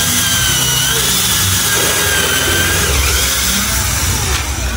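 Cordless drill with a countersink bit boring and countersinking a hole in a laminated board, its motor running with a steady high whine until the bit lifts out and it stops near the end.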